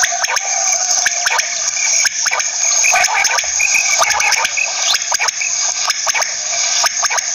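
Quail (bater) calling: a dense, unbroken run of short, sharp call notes and clicks, with brief chirps mixed in.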